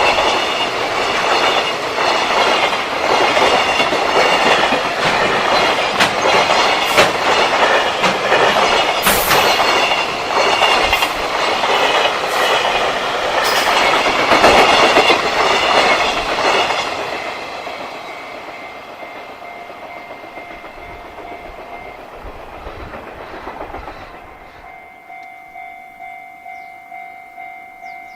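Freight train rolling past at close range, its wagons clattering over the rail joints, then receding and fading away. Near the end a level-crossing alarm bell rings with a steady, rapid repeating ding, about two strokes a second.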